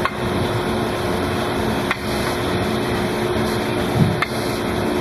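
Hydraulic mandrel tube bender running with a steady hum and noise, with a few sharp clicks and a low knock about four seconds in.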